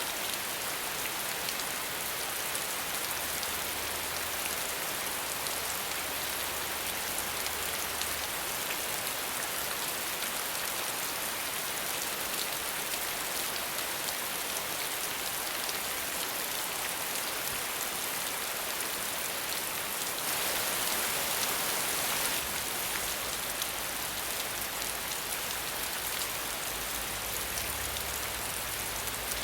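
Steady rain without thunder, an even hiss of falling drops that grows briefly heavier about two-thirds of the way through.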